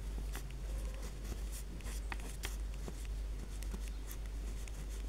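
A pen writing on a paper worksheet: faint, quick scratching strokes of the tip on the paper as words are written out.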